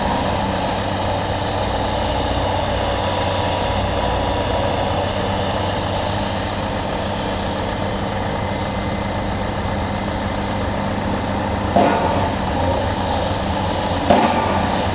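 Diesel engine of a demolition excavator running steadily. Two louder crashes come near the end as the machine breaks into the building.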